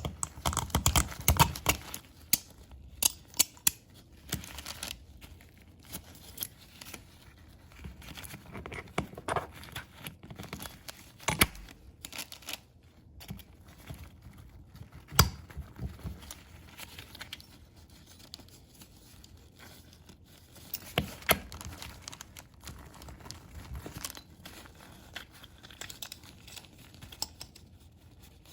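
Irregular clicks, taps and scraping with bits of rustling, the sound of small parts being handled and cleaned by hand, with one sharp click about halfway through.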